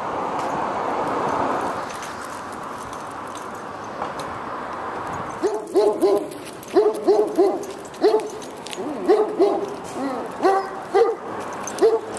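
A dog behind a fence barking in quick runs of short, pitched barks, starting about five and a half seconds in, over steady background noise.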